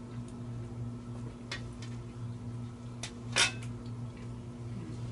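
Forks and knives clinking against dinner plates as people eat: a few separate clinks, the sharpest about three and a half seconds in, over a steady low hum.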